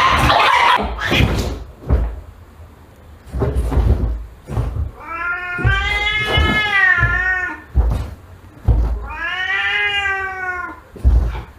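A cat yowls twice at a dog in long, drawn-out calls, the first about two and a half seconds long and the second a little shorter. A brief noisy burst comes at the very start.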